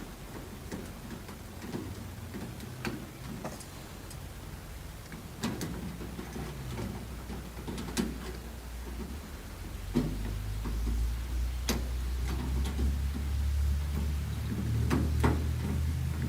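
Phillips screwdriver turning the screws of an exterior doorknob assembly by hand: scattered sharp clicks and taps of metal on metal at irregular intervals, with a steady low hum that comes up about ten seconds in.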